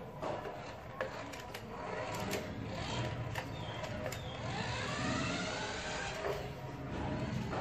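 Electric drive motor of a toy remote-control BMW i8 car whining as the car pulls away, the whine rising in pitch about four and a half seconds in. Scattered sharp clicks come before it.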